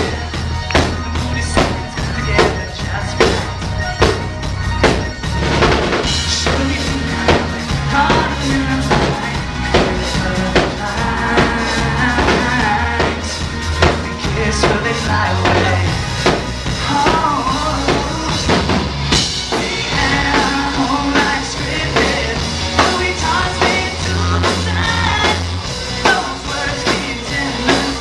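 A live pop-rock band plays a song over a steady drum-kit beat with electric guitars, bass and keyboard, and a lead voice sings over it. It is heard amplified from within the audience.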